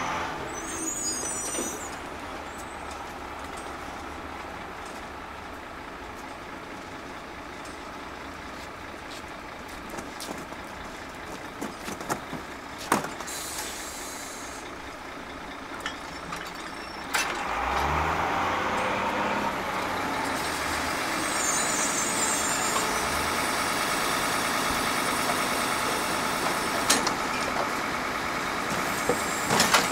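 Rear-loading garbage truck running, with a short air hiss near the start and a few knocks and clatters of a plastic wheelie bin being wheeled to it. About halfway through, the truck gets louder and stays so as its hydraulic bin lifter raises and tips the bin.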